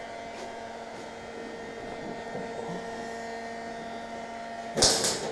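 Electric heat gun running with a steady hum while a dented plastic bumper is heated to reshape it; near the end, a short loud noise.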